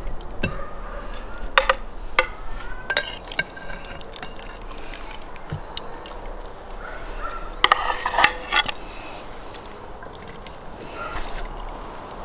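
A metal skimmer clinking and knocking against a brass pot while pieces of fish are lifted out of the broth: a few sharp clinks, some with a short metallic ring, in the first three seconds, then a quick cluster of clinks about eight seconds in.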